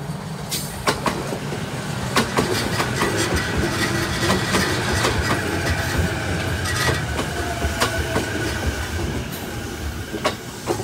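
JR East E233 series 0 electric train passing, its wheels clacking over rail joints in irregular sharp clicks above a steady rumble, with a faint high whine through the middle of the pass.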